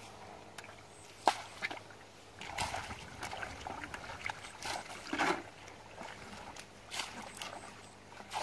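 Splashing and sloshing in shallow muddy water as people wade and grope with their hands for fish, in scattered short splashes, with one sharp knock about a second in.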